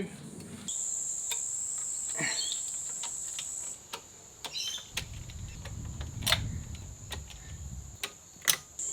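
A steady high-pitched insect drone that starts about a second in, drops away midway and returns near the end, with scattered sharp clicks and knocks of parts being handled, a few short bird chirps, and a low rumble for a few seconds in the middle.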